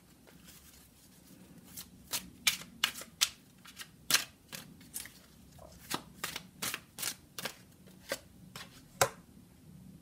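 A deck of tarot cards shuffled by hand: a run of sharp, irregular card slaps and flicks from about two seconds in until about nine seconds in.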